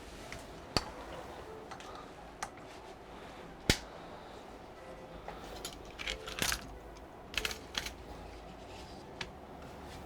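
Tools and small parts being handled on a workbench: scattered sharp clicks and light clatter, the loudest click a little before the middle, and a short run of rattling clicks later on.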